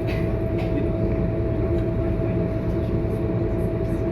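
Scania K230UB bus's diesel engine running, a steady low drone heard from inside the bus, with a steady high hum above it. A few faint clicks sound in the first second.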